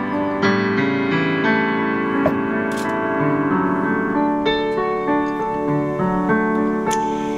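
Digital piano playing slow, sustained chords that change about every half second to a second.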